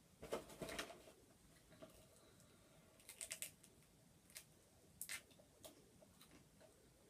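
Faint crinkling and clicking of a plastic candy bag and jelly beans being rummaged through, in short bursts just after the start, around three seconds in and around five seconds in, with a few single ticks between.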